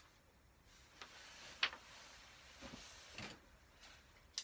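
Faint handling noises: a few soft clicks and rustles of a paper manual and model parts being set down and moved on a workbench, with a sharper click about a second and a half in and another near the end.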